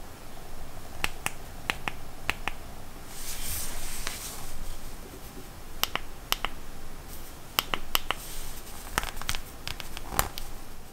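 Thin plastic protective film being peeled off an iPhone 12 Pro Max, with a patch of crinkly rustling about three seconds in, among a string of sharp plastic clicks; later clicks come in small clusters as the phone's side buttons are pressed.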